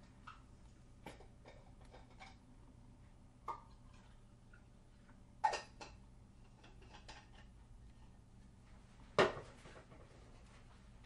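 Faint scattered clicks and taps from wet hands handling and turning a washed persimmon, with two louder knocks about five and nine seconds in, over a faint steady hum.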